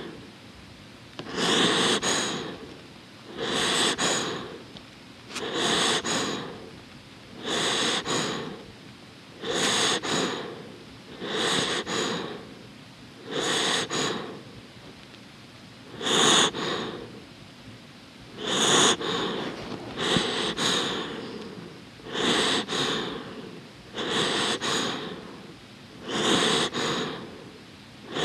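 A dozing dog breathing close to the microphone: a slow, even rhythm of noisy breaths, about one every two seconds.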